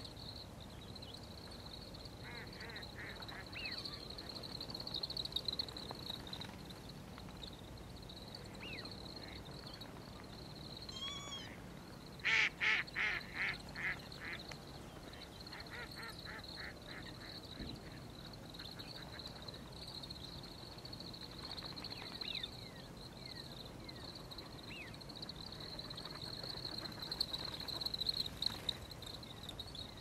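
Grey-capped greenfinch calls: short runs of rapid notes, the loudest a burst of about six notes around twelve seconds in, over a steady high-pitched background tone.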